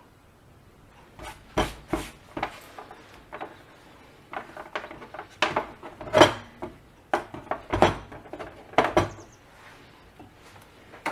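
Hands handling wire and small items on a hard tabletop: irregular clicks, taps and rubbing, with a few louder knocks.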